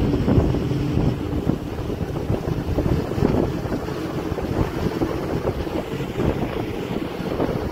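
Wind buffeting the microphone of a moving vehicle on the road, over rumbling engine and tyre noise from the vehicle and passing traffic.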